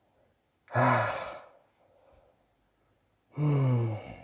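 A man giving two weary sighs, each falling in pitch, the second more voiced, like a groan. The sound of an aching, exhausted body.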